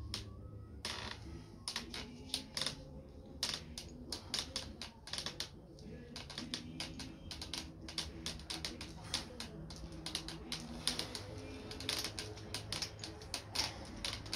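Rapid, irregular clicks and creaks from a bicycle's handlebars and seized quill stem being wrenched back and forth inside the frame's steerer tube.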